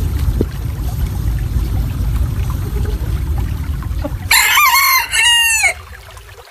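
Silver Sebright bantam rooster crowing once, a short high-pitched crow about four seconds in whose notes fall in pitch at the end. Before it there is a low, steady rumbling noise.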